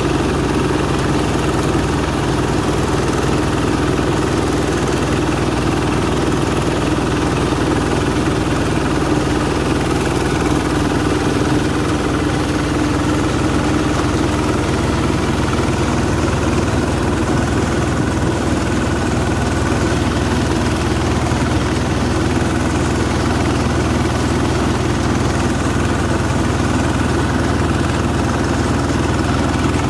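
Quick H-140R mini rice combine harvester running steadily while it cuts and threshes standing rice, its engine and threshing gear making a continuous even drone.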